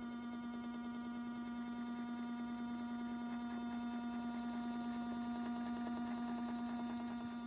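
A 40-year-old washing machine running its drum clean cycle, giving a steady electrical hum.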